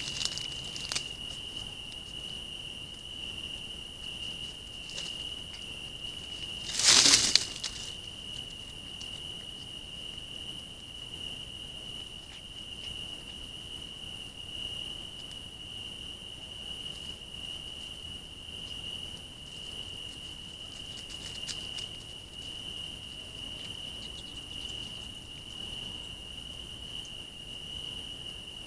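Night woodland ambience picked up by a trail camera: a steady high-pitched tone throughout, with one brief loud rustle about seven seconds in.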